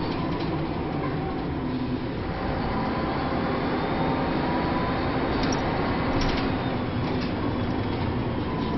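Inside a DAF single-decker bus with a Paladin body, under way: steady engine and road noise with a faint steady whine, and a few short rattles from the body about five to seven seconds in.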